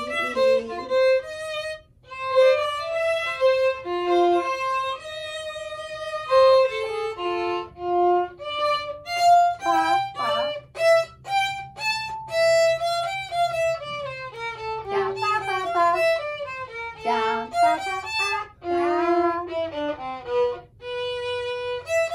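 Two violins playing a melody together; later in the passage one violin plays on alone.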